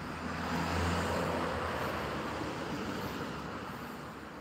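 A car driving past on the street: engine hum and tyre noise swell about a second in, then slowly fade away.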